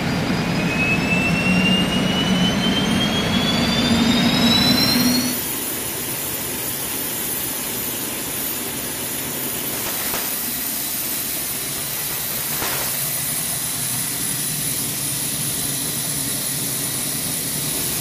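Jet engine whine rising steadily in pitch over the first five seconds, as in an engine spooling up, then a steady jet engine running with a high turbine whine.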